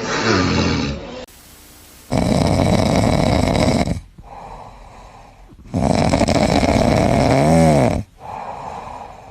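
A person snoring loudly: two long snores of about two seconds each, with quieter breaths out between them.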